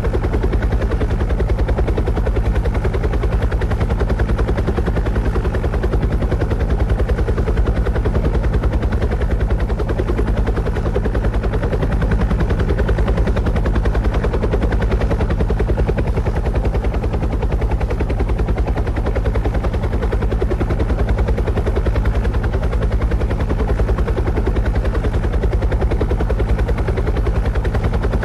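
Steady aircraft rotor noise: a fast, even chopping pulse over a low hum, unchanging throughout.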